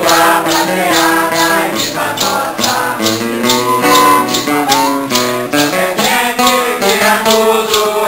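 A Santo Daime hymn sung by a group, with maracas shaken on a steady beat of about two to three strokes a second and acoustic guitar accompanying.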